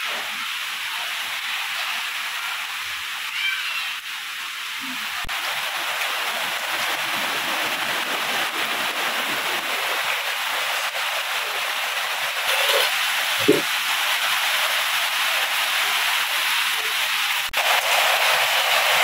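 Rain falling steadily, a continuous hiss of water; the sound changes abruptly near the end.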